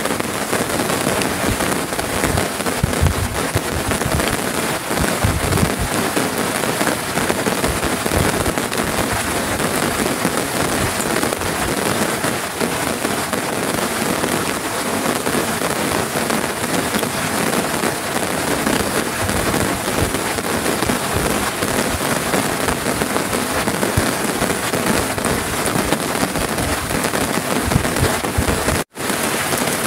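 Heavy rain falling steadily: a dense, even hiss with scattered low thuds of drops. It cuts out for a split second near the end.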